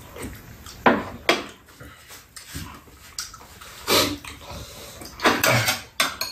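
Sounds of a meal at a shared table: spoons and chopsticks knocking against bowls and a metal tray, mixed with the mouth noises of eating, in a string of short sharp sounds at irregular moments.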